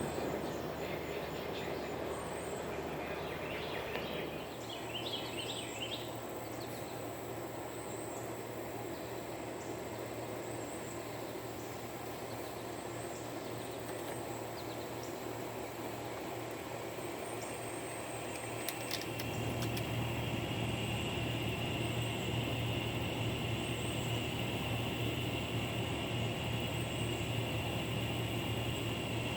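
Cicadas buzzing in a steady drone, over a thin high insect trill. About two-thirds of the way in, a louder cicada buzz swells in together with a low steady rumble.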